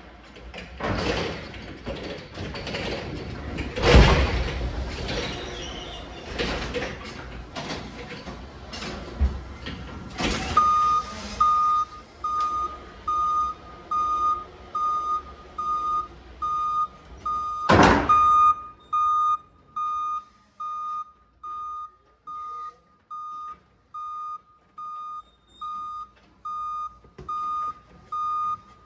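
Forklift rattling and clanking as it rolls over the threshold into a truck trailer, with a loud bang about four seconds in. Then its warning beeper starts, repeating a steady beep a little more than once a second, and there is one more loud clunk partway through.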